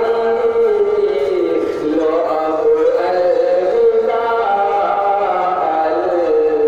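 A man singing a naat unaccompanied into a microphone, in long held notes that slide slowly up and down in pitch.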